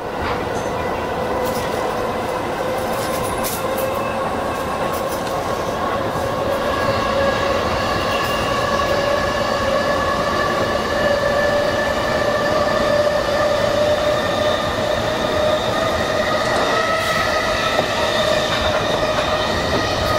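E233-1000 series electric train heard from its front cab, running through a short tunnel: a steady rolling rumble under a whine that rises slowly in pitch.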